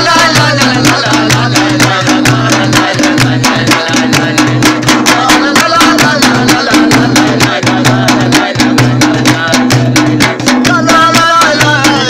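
A group of men clapping hands in a fast, steady rhythm of about five claps a second, accompanying men singing a Shina folk song.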